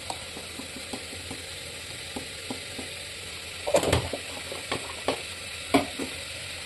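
Spiced tomato masala sizzling in oil in an aluminium pressure cooker, being fried until the oil separates. A steady soft sizzle with scattered small clicks, and a few louder knocks about four seconds in and twice more before the end.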